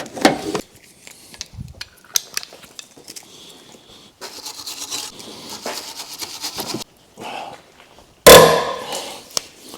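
Hand tools working on a car's front suspension: scraping and rubbing with scattered clicks, then a single loud knock about eight seconds in that dies away over a second.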